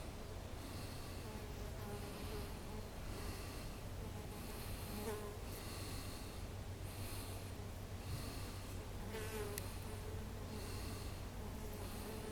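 Bees and bumblebees buzzing while they forage on flowering ceanothus and wisteria: a steady low hum, with individual buzzes swelling now and then as a bee passes close. There is a brief warbling chirp about nine seconds in.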